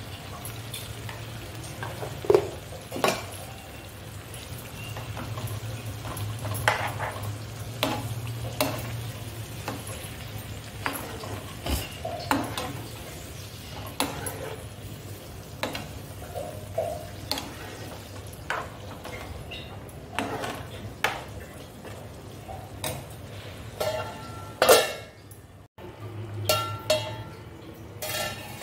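Prawns and green chillies sizzling in oil in a nonstick frying pan, stirred with a metal spoon that scrapes and knocks against the pan again and again.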